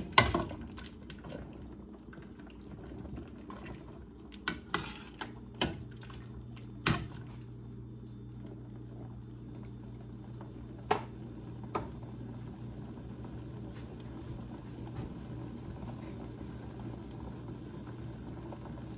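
Metal ladle stirring soup broth in a stainless steel stockpot, with a number of sharp clinks of the ladle against the pot over the first twelve seconds. A steady low hum sets in about five seconds in.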